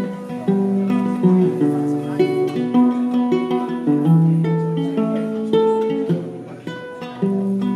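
Background music: an acoustic guitar playing a plucked melody.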